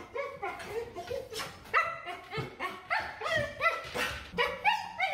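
Husky screaming and yelping in a rapid string of short, bending cries, about two or three a second, in vocal protest at being brushed out on the grooming table.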